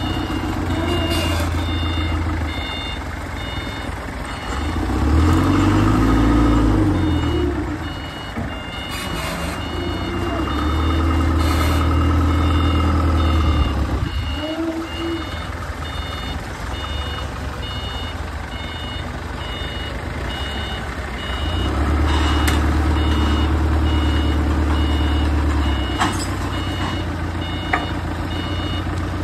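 A heavy vehicle's engine running and revving up three times, the first time with its pitch rising and falling, while its reversing alarm beeps steadily. A few sharp clanks are heard along with it.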